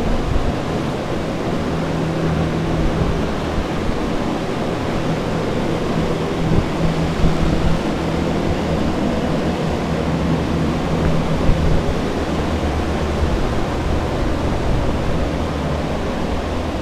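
Carpet-drying air movers running, a steady loud rush of fan noise with a low hum under it.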